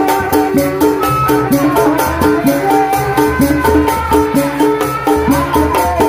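Sundanese tanji ensemble music for kuda renggong: drums beat a fast steady rhythm, about four strokes a second, under a melody line.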